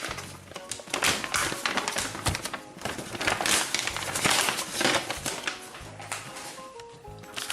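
Toy packaging being handled, crinkled and torn open by hand in a rapid run of crackling rustles, with quiet background music underneath.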